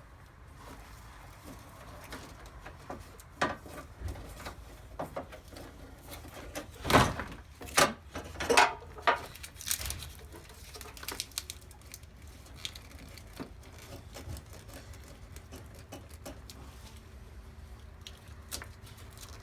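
Plastic clicks, knocks and rattles as a Holden VY Commodore headlight's wiring plugs are unplugged and the headlight housing is worked free and slid out. A cluster of sharper knocks comes about seven to nine and a half seconds in.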